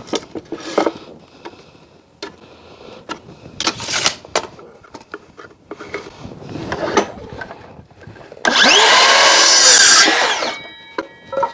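Timber being handled with scattered knocks, then a power saw cutting through timber for about two seconds, the loudest sound, before its blade whines as it spins down near the end.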